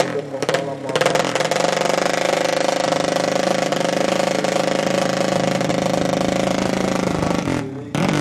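200cc drag bike engine revved in short blips for about a second, then held at a steady high rev for about six seconds, dropping off near the end.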